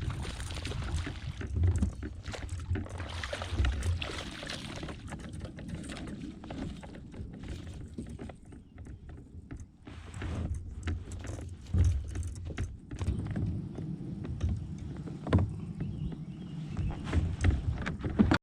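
A fishing kayak moving on the water: paddle and water sounds, with a steady low rumble and scattered knocks.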